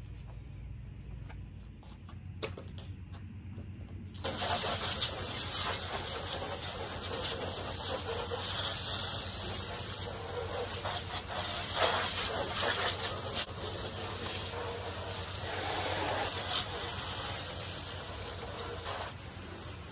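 Garden hose spraying water against window glass: a steady hiss that starts suddenly about four seconds in and swells and dips as the spray moves. Before it there is only a low steady hum.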